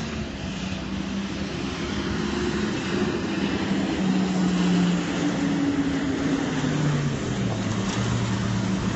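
Garbage truck approaching, its engine running with a pitch that steps down a few times and getting louder.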